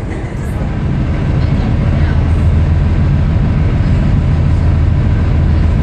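Harbour ferry's engine running with a steady low drone that strengthens slightly about a second in.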